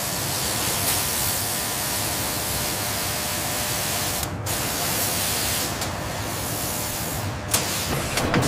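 Steady, loud hiss of a CNC cutting head slicing sheet metal amid a spray of sparks. It breaks off for a moment about four seconds in, and there is a sharp click near the end.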